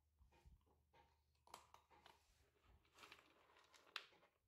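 Near silence with faint scattered clicks and rustles. About four seconds in comes a single sharper click, as dry kibble is scooped by hand in a plastic dog bowl.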